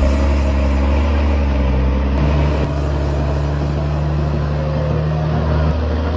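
Heavy diesel engine running steadily under load, with a low, even pitch.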